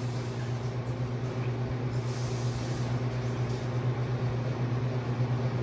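Refrigeration equipment running with a steady low electrical hum, and a brief faint hiss about two seconds in.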